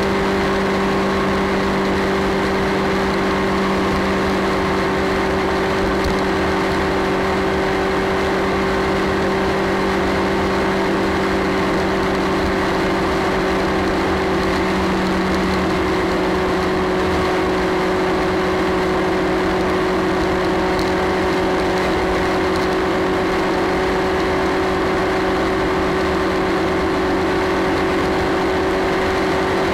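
Motorcycle engine running steadily at motorway cruising speed, its drone holding one pitch, under a constant rush of wind and road noise.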